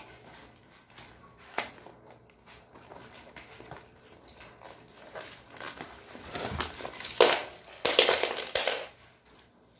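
Packaging being handled while parts are unwrapped: faint rustling with a single sharp click, then louder bursts of crinkling and rustling plastic wrap in the last few seconds.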